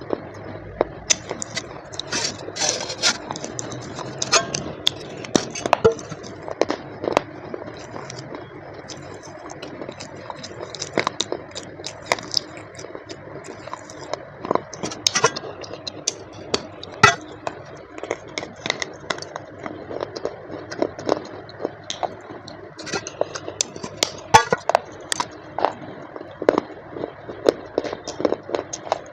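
Close-up sounds of a parcel being opened by hand: irregular crackling and scraping of packaging, broken by many sharp clicks and clinks of hard pieces being handled.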